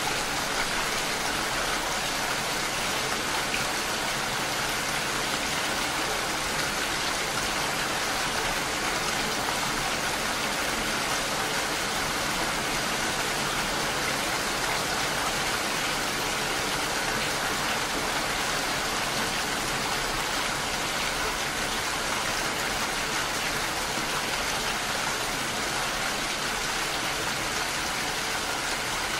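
Steady rain falling, an even hiss that holds at one level without letting up.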